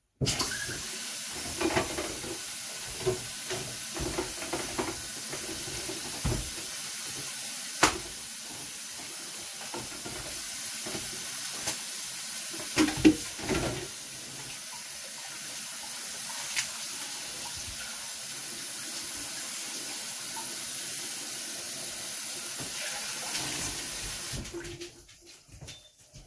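Kitchen sink tap running steadily, with occasional knocks and clatter of things being handled over the water; the tap is shut off near the end.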